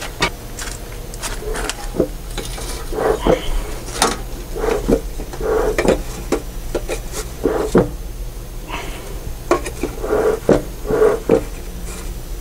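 Dry timothy hay rustling and scraping as it is crammed by hand into a bee smoker's metal fire chamber, in short irregular bursts of handling noise.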